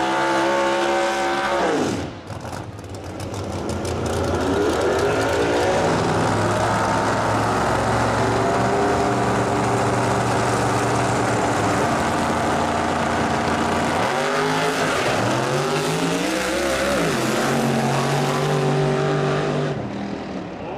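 No-prep drag cars' engines: a burnout with the engine revving hard, then the cars held at high revs on the start line, then revving up through the gears as they launch about fourteen seconds in, dropping away near the end.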